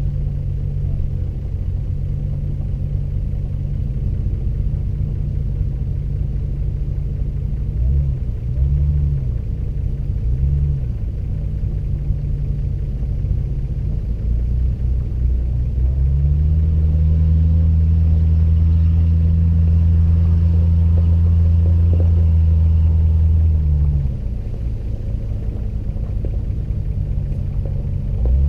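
Off-road SUV engine running at low speed on a dirt trail, picked up by a camera mounted on the vehicle, with a heavy low rumble. The revs rise briefly twice about a third of the way in, then hold at a steadier, louder drone for several seconds before dropping back.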